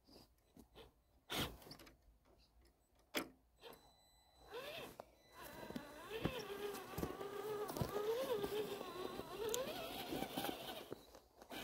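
Whine of an RC crawler's electric motor and gears, starting about four and a half seconds in, its pitch rising and falling with the throttle. Before that there are a few faint crunches.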